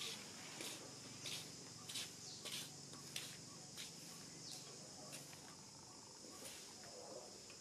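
Steady, high-pitched insect drone, with short, sharp, high chirps repeating about every two-thirds of a second, some of them sliding down in pitch.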